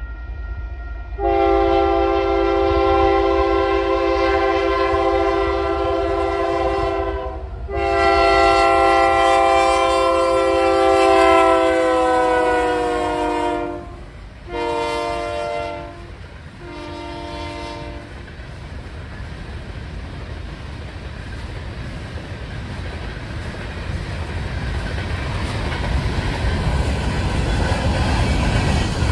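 Union Pacific diesel locomotive's multi-chime air horn sounding the grade-crossing signal: long, long, short, long. The pitch of the second blast drops as the locomotive passes. After that the freight cars roll by with a steady rumble and wheel clatter that grows louder toward the end.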